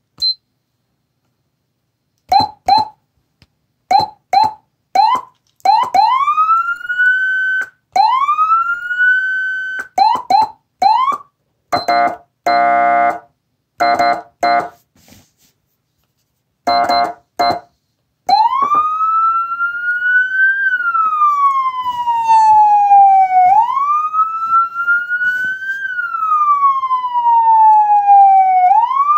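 Federal Signal SmartSiren SS2000 electronic siren running through its demo tones: first the manual tone as a string of short whoops, each rising to the top pitch and cutting off without falling back. Then air-horn blasts, one long and several short, and from about two-thirds of the way in the wail, a slow rise and fall repeating about every five seconds.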